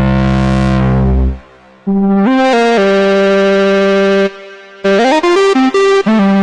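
Moog Subsequent 25 analog synthesizer playing a bright, brassy lead patch. A low held note brightens as its filter opens, then stops. After a short break, a melodic line follows with notes gliding into one another. A held note gives way to a run of short, separate notes near the end.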